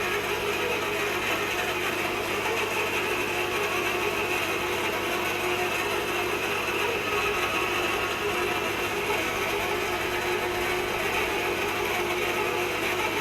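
Manual hot-tapping machine working on a cold ammonia pipe, giving a steady, unbroken mechanical noise as it cuts into the pipe.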